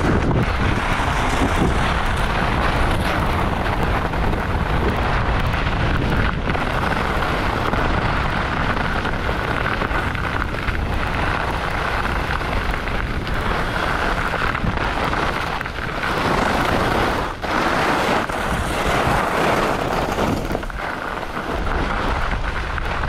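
Wind buffeting a GoPro Hero8 Black's microphone, with skis scraping over groomed, hard-packed snow during a fast downhill run: a steady, loud rush of noise with a deep rumble underneath.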